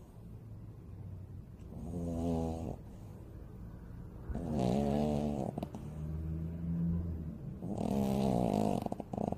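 A Cavalier King Charles Spaniel snoring in its sleep: about four raspy, pitched snores a couple of seconds apart. The loudest come about halfway through and near the end.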